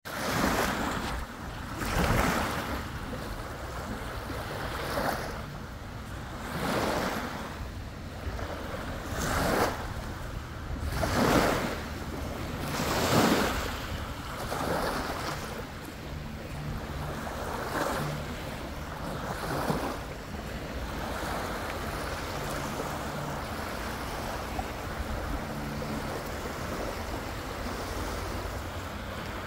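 Small waves on Lake Superior breaking and washing up a sandy beach, swelling every two seconds or so for about twenty seconds, then settling into a steadier wash.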